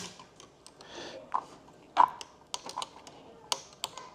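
Irregular sharp metallic clicks and clinks of hand tools at work on an engine: a 1/4-inch drive ratchet, socket and wobble extension being handled.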